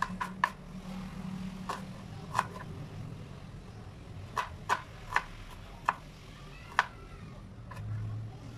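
Kitchen knife cutting a red onion on a wooden cutting board: irregular sharp taps of the blade striking the board, about a dozen spread through.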